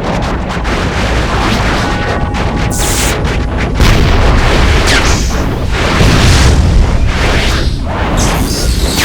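Dense layered sci-fi sound effects for an anime armour transformation: deep booms and a continuous low rumble, with a brief cluster of steady ringing tones about two seconds in and a loud hit about four seconds in, followed by sweeping swishes.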